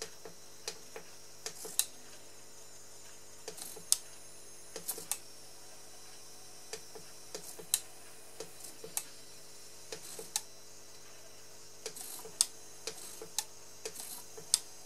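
Servo drives of a Märklin C-track three-way turnout throwing the points back and forth: irregular small clicks and ticks, several with a brief high whir.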